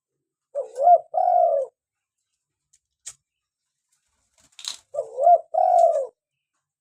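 Spotted dove (tekukur) cooing: two matching phrases about four seconds apart, each a short wavering coo followed at once by a longer coo that falls away. A faint click sounds between them.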